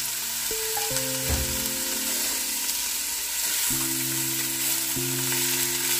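Sliced vegetables (cabbage, carrot, cucumber and tomato) sizzling in hot ghee in a pan as a spatula stirs them, a steady frying hiss. Soft background music of held notes that change a few times plays underneath.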